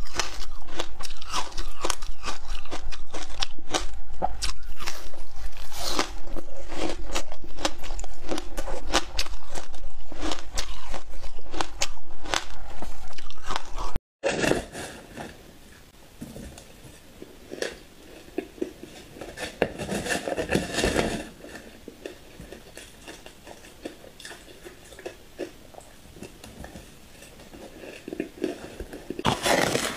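Hard ice being bitten and crunched close to a clip-on microphone, loud and dense, for about fourteen seconds. After a sudden cut, softer, sparser crunching and chewing of spoonfuls of matcha shaved ice, louder for a couple of seconds midway and again near the end.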